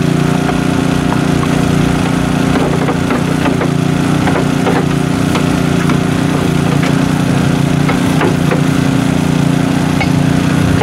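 A small engine drones steadily throughout, with light ticks and scrapes over it from a hand brush scrubbing the engine-bay plastics.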